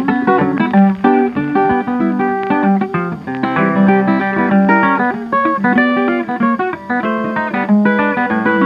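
Background instrumental rag music, a lively tune of quick, busy plucked notes.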